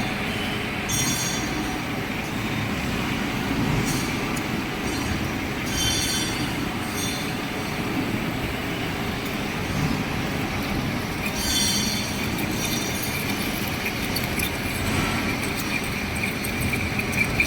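Metal lathe running under a hand-fed cut, with a steady high whine and several short, high-pitched squeals of the cutting tool on the turning metal.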